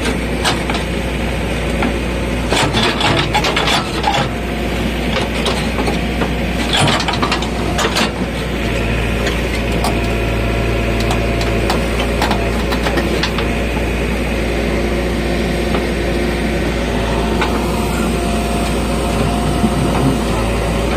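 JCB 3DX backhoe loader's diesel engine running steadily under load while the backhoe bucket digs into dry, stony soil. Scraping and knocking from the bucket are heaviest in two spells, about 3 and 7 seconds in.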